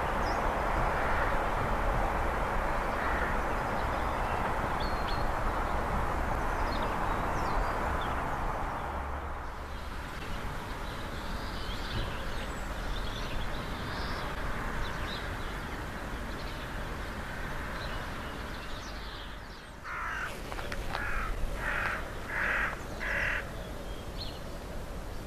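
A train's running noise fades away over the first nine seconds or so. Near the end a crow caws five times in quick succession, with small birds chirping faintly.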